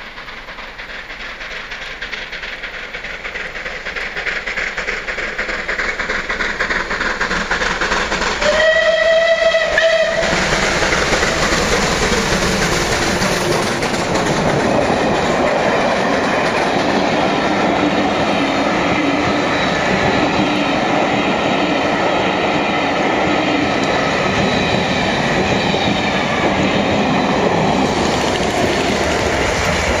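Merchant Navy Class 4-6-2 steam locomotive 35028 Clan Line approaching at speed, its noise growing steadily louder. Its whistle sounds once for about a second and a half about nine seconds in. Then the train runs past at speed, a loud steady rush of the locomotive and its Pullman coaches going by that keeps up to the end.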